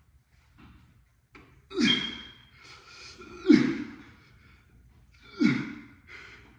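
A man grunting with effort three times, each grunt sliding down in pitch, with heavy breaths between, as he strains through leg raises for his abs.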